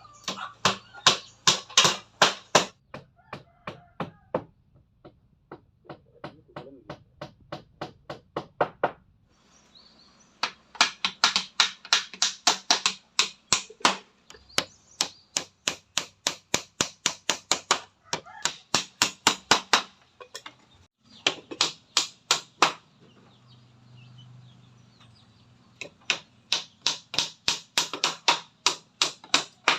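Hammer driving nails into wood: runs of quick, sharp strikes, about four a second, with short pauses between runs.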